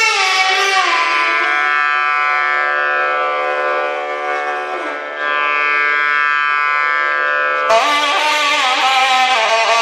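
Nadhaswaram playing a slow passage of raga Behag without drum: long held notes bending and sliding between pitches. A brighter, louder phrase comes in sharply near the end.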